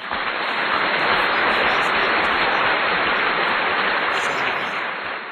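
French fries sizzling hard in hot cooking oil, just put into the pan: a loud, steady hiss.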